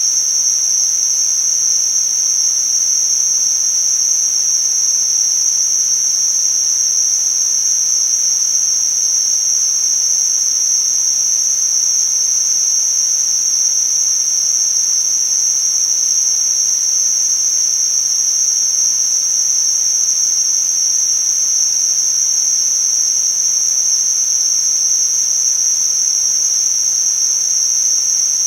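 Synthetic tinnitus-masking noise: a steady, high-pitched hiss held in one narrow high band, over a fainter, even full-range hiss.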